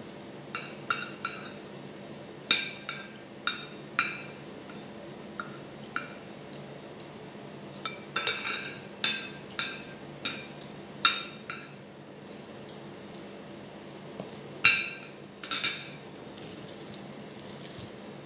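Metal spoon and fork clinking and scraping against a ceramic plate during eating: irregular clusters of sharp, ringing clinks that stop a couple of seconds before the end.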